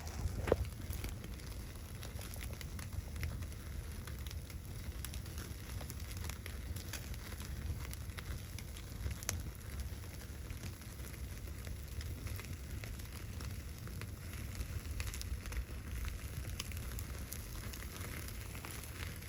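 Wood fire crackling with many small irregular pops, over a steady low rumble.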